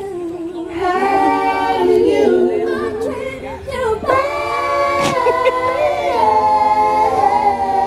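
A woman singing a cappella into a handheld microphone, with long held notes and a boy's voice joining in.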